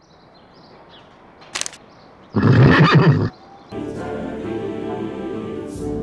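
A horse neighing loudly for about a second, preceded by a short sharp click. Choral-orchestral music comes back in a moment later.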